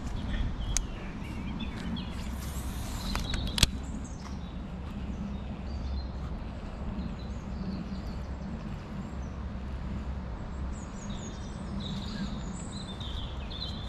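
A cast with a baitcasting rod a few seconds in, a brief whoosh ending in a sharp click, over a steady low rumble; small birds chirp near the end.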